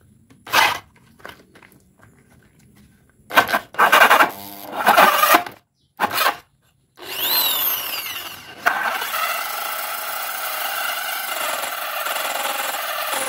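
Cordless drill turning a large Bison hole saw into a hard wooden board. It comes in several short bursts as the cut is started, then from about nine seconds in gives a steady grinding of the saw teeth biting into the wood.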